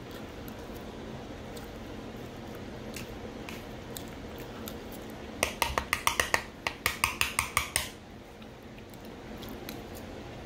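Cutlery clicking against a dish in a quick run of about a dozen sharp strikes, roughly five a second, starting about five seconds in and lasting a couple of seconds; otherwise faint room noise with the odd small tick.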